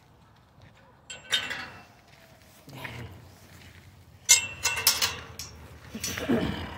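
Several groups of sharp metallic clinks and rattles, the loudest about four seconds in, with a short cry falling in pitch near the end.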